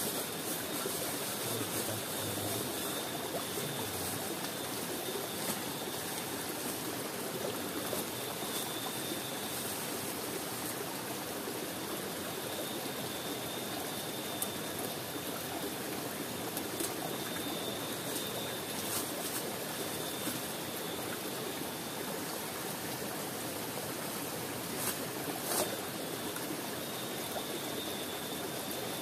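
Steady rush of a river flowing over rocks, with a few light clicks from cooking gear being handled.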